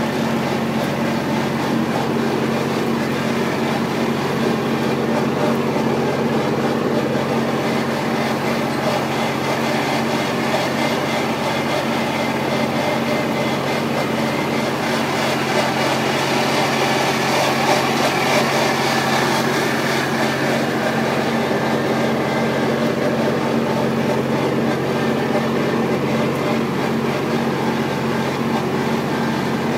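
Tractor engine running steadily while it drives a powder sulfur duster through the vine rows, a constant even hum throughout.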